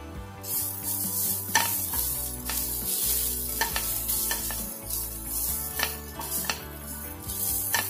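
Chopped vegetables sizzling in a frying pan while being stirred and tossed with a spatula, which scrapes and taps against the pan about once a second. The sizzle starts about half a second in.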